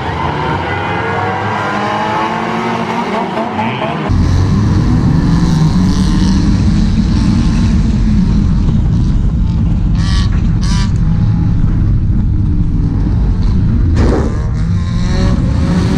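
Race car engines revving as the cars circle a dirt oval. About four seconds in the sound jumps to a loud onboard mix of one car's engine running hard with heavy low noise. A few sharp knocks come near ten and eleven seconds in and again near the end.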